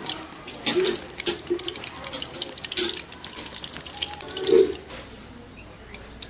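Egg pakoras deep-frying in hot oil in a steel karahi, sizzling and crackling, with a louder knock about four and a half seconds in. It dies down to a quieter background near the end.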